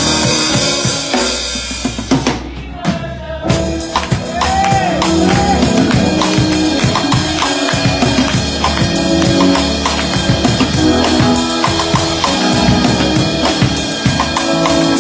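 Drum kit played live in a gospel-style groove: snare, kick and cymbals over a band's sustained bass notes and chords. The cymbals drop out for about a second a couple of seconds in, then the kit comes back in with busy, fast hits.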